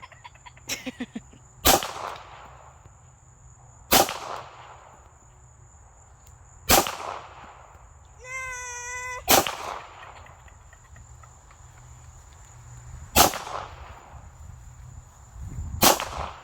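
Glock 17 9mm pistol fired six times at uneven intervals of two to four seconds, each shot sharp with a short ringing tail. A brief wavering animal call sounds about eight seconds in, between the fourth and fifth shots.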